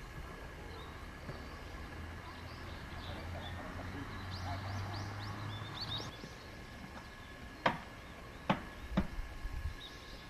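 Outdoor ambience beside an old electric railcar standing at a platform. A low steady hum swells and fades over the first six seconds, and birds chirp about four to six seconds in. Three sharp knocks come near the end.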